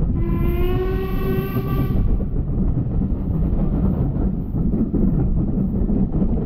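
Steam whistle of an LMS Ivatt Class 2 2-6-2T tank locomotive sounding a single blast about two seconds long, heard from a carriage behind it. Under it and after it, the train rumbles and clatters steadily along the rails.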